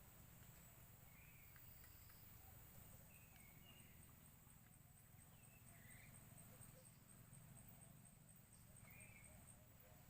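Near silence: faint outdoor ambience with a high, rapidly pulsing insect trill that stops near the end, and a few soft, short bird chirps spread through.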